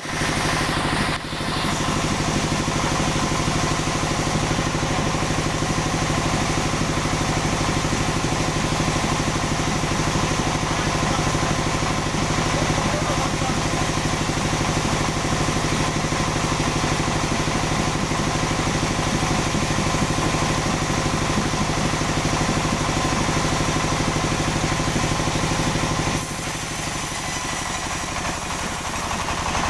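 Sawmill engine running steadily with an even pulse; about a second in it dips briefly, and near the end the sound drops a little in level and turns more hissy.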